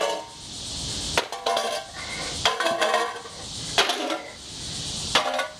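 Sledgehammer striking a metal tea kettle about five times, a little over a second apart, each blow clanging with a short metallic ring as the kettle is beaten flat.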